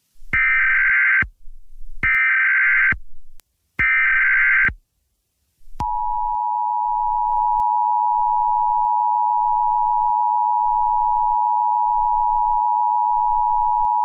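Emergency Alert System tones: three roughly one-second bursts of SAME header data, then the steady two-tone EAS attention signal sounding for about eight seconds.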